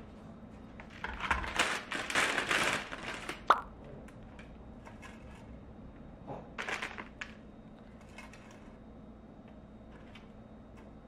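Plastic noodle packaging crinkling in two short bouts while dried glass noodles are handled, with a single sharp click about three and a half seconds in and light ticks in between.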